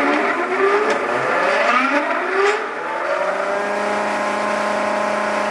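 A 15-inch disc sander's half-horsepower three-phase motor, just switched on, spins up with a whine rising in pitch for about three seconds, then runs steadily at full speed with an even hum.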